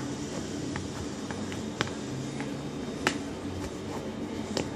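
Wooden ice-cream stick tapping and scraping against a clear plastic box while pressing slime inside it: a scatter of sharp clicks, the loudest about three seconds in, over a steady low hum.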